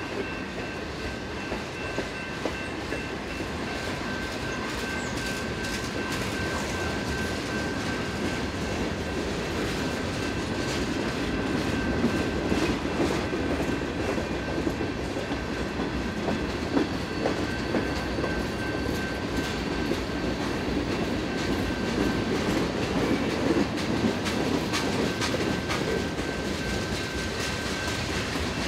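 Norfolk Southern freight train of tank cars, covered hoppers and boxcars rolling steadily past: a continuous rumble of wheels on rail, with clicking as the wheels cross rail joints. A steady high ringing from the grade-crossing signal bell sounds over it, fading past the middle and returning near the end.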